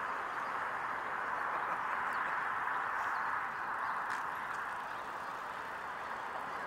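Steady outdoor background hiss, strongest in the middle range, with a few faint, short high chirps between about two and four and a half seconds in.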